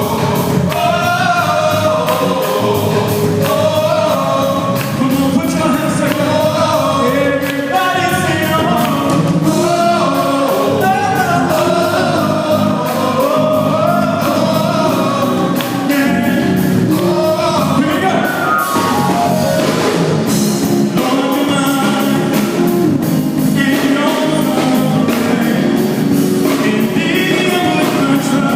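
Live gospel music: a male lead singer with backing voices over a band, drums and cymbals keeping a steady beat.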